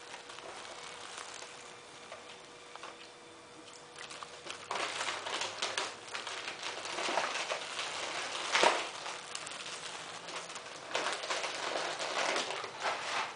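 Rat terrier licking and chewing sticky cotton candy: wet smacking and clicking mouth noises in bursts, starting about four seconds in, with one sharper click near the middle.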